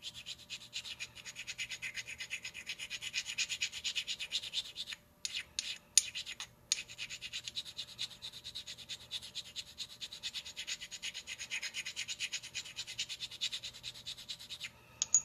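A lathe cutting tool's tip being honed by hand on a square carborundum stone to give it a tiny radius: rapid short rubbing strokes, several a second. About five seconds in the strokes pause for a moment, with a few light clicks, then go on again until just before the end.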